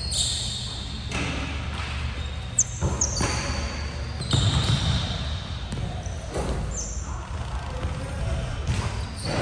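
A basketball bouncing on a hardwood gym floor during play, with irregular thumps and short high squeaks from sneakers.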